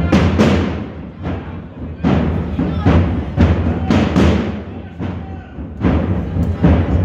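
Procession drums beating a marching rhythm, the strokes often coming in pairs about once a second, with a steady low rumble underneath.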